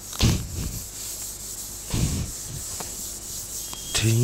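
A writing board being wiped clean with an eraser: two rubbing strokes, one just after the start and one about two seconds in.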